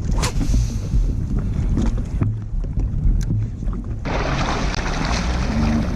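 Wind buffeting the microphone on open water, a constant low rumble. A steady hiss joins about four seconds in.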